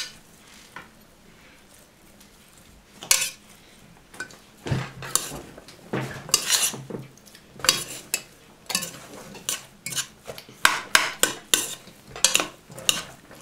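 Metal slotted spoon stirring chopped okroshka ingredients in an enamel pot, with irregular scrapes and clinks of the spoon against the pot from about three seconds in.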